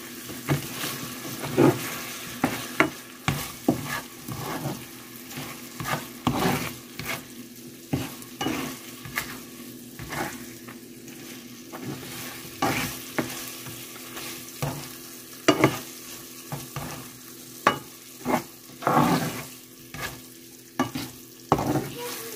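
A spatula stirring and scraping chicken strips through a thick, sizzling lemon sauce in a nonstick frying pan, with irregular scrapes and knocks against the pan over a steady sizzle. The chicken is being turned to coat it fully in the reduced sauce.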